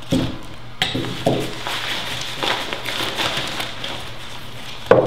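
Rustling and crinkling of a folded fabric softbox and its carry bag as they are handled and unfolded, with small knocks and clicks from the parts.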